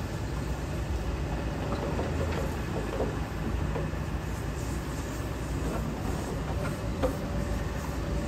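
Hitachi ZAXIS 210K hydraulic excavator running steadily with a low diesel engine rumble, with scattered light metallic clanks and one sharper clank near the end.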